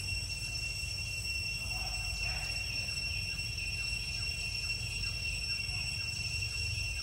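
Steady high-pitched insect drone, with faint short chirps repeating a few times a second through the middle and a low rumble underneath.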